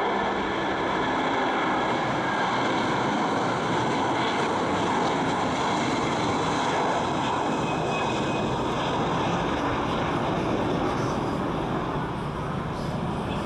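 Airbus A330-300 with Rolls-Royce Trent 700 turbofans at takeoff thrust as it lifts off and climbs out: a steady, loud jet rumble with a faint steady whine in it, easing slightly near the end.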